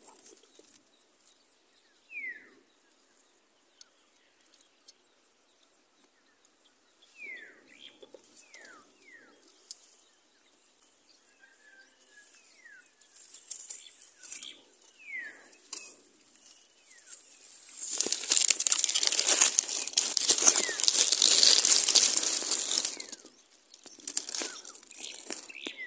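A few short falling whistled bird calls, several seconds apart, then about five seconds of loud close rustling and crackling of dry grass and leaves.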